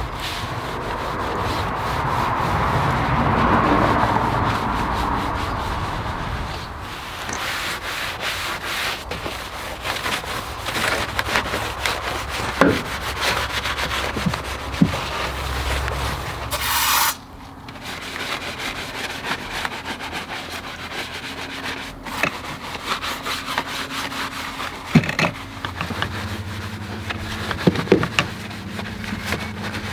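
Detailing brush scrubbing a foam-covered car engine bay: repeated scratchy rubbing strokes of the bristles over the plastic engine cover and parts, with a brief hiss about seventeen seconds in.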